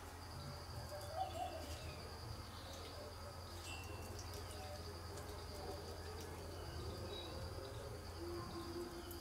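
Faint outdoor ambience: a steady high-pitched insect drone under a low hum, with scattered short chirps of small birds. A low repeated call comes in near the end, typical of a dove cooing.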